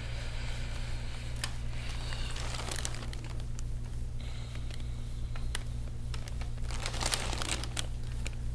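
Deep-tissue forearm massage on an oiled calf: crinkling rubs and scattered small clicks, louder about seven seconds in, over a steady low hum.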